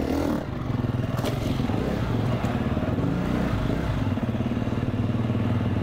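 Dirt bike engine running steadily at low speed as the bike is ridden slowly, with a short click about a second in.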